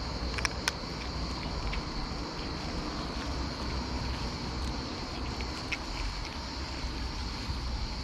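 Cat crunching dry kibble, with a few sharp crunches, over a steady outdoor background of low rumble and a constant high hiss.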